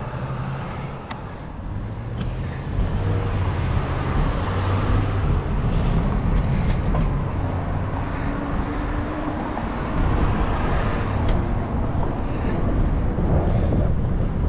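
City road traffic: vehicle engines running and tyre noise on the street, growing louder about three seconds in.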